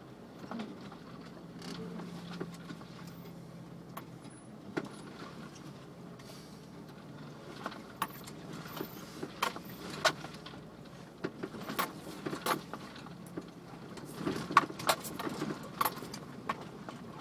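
A Jeep's engine running low and steady, heard from inside the cab as it crawls over rough rock, with sharp rattles and knocks from the body and loose gear; the knocks come thicker in the second half and cluster a few seconds before the end.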